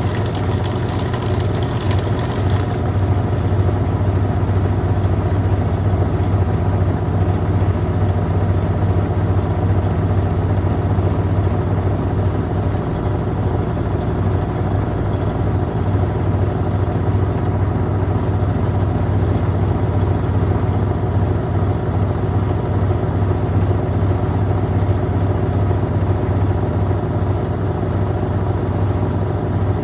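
Brastemp Clean washing machine running, its motor giving a loud, steady hum, with a high hiss that fades out about two and a half seconds in.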